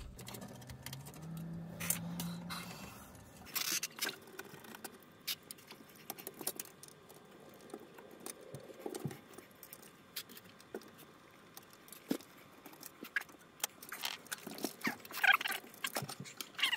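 Scattered light clicks, ticks and rattles of plastic and metal as hands work inside an opened Sony Betamax video recorder, unplugging wiring connectors and lifting out a circuit board. The clicks come irregularly and are busiest near the end.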